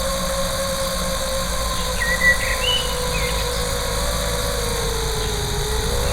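FPV quadcopter's motors and propellers whirring steadily in flight, the pitch dipping slightly and rising again near the end.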